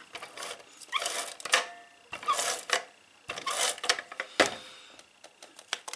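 Pink ATG adhesive tape gun run over the back of a cardstock piece: three short, clicky rattling runs as the tape feeds out, with a sharp click a little after the last one.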